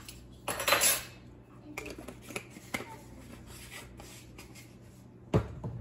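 Off-screen kitchen handling noises: a short rustle about half a second in, scattered light ticks, and a single low thump near the end.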